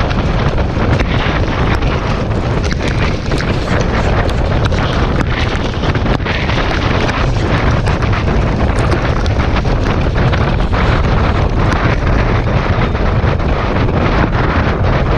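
Heavy wind buffeting the microphone of a camera on a harness-racing sulky moving at racing speed behind a standardbred. Frequent sharp clicks and knocks come through it, from the horse's hooves on the track and the rattling sulky.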